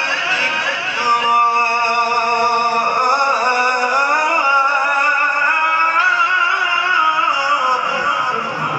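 Quran recitation: a male reciter's voice chanting in long, drawn-out melodic notes, held steady for a couple of seconds, then wavering and gliding.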